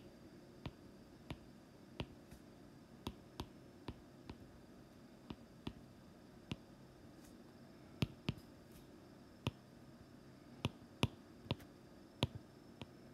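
Sharp taps on an iPad's glass touchscreen as equations are handwritten. The clicks are irregular, about one or two a second, over faint steady room hum, with the loudest taps around eight and eleven seconds in.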